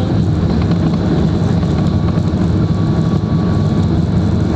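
Boeing 737 MAX 8's CFM LEAP-1B turbofan engines at takeoff thrust, heard from inside the cabin as a loud, steady roar over a deep rumble from the wheels on the runway during the takeoff roll, with a faint thin whine on top.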